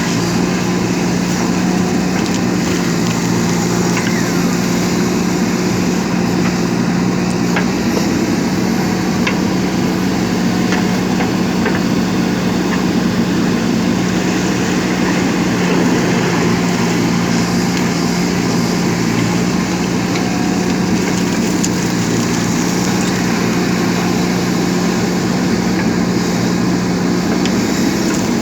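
JCB 3DX backhoe loader's diesel engine running steadily at an even pitch, with a few faint ticks.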